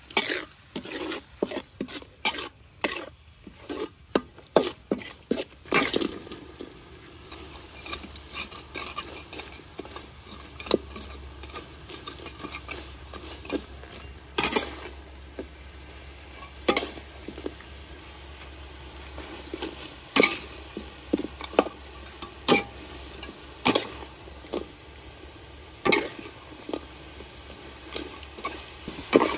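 Metal spatula scraping and clanking against a steel wok while stirring chili paste and chicken feet frying in it, with a faint sizzle between strokes. The strokes come quickly for the first few seconds, then as single clanks every couple of seconds.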